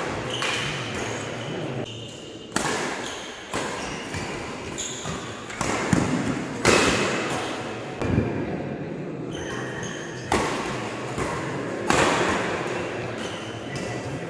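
Badminton rackets striking a shuttlecock in a doubles rally, sharp smacks roughly every one to two seconds, each echoing in the hall, with short high squeaks of shoes on the court mat between hits.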